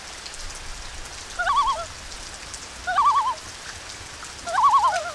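A bird's warbling call, heard three times about a second and a half apart, over a steady hiss.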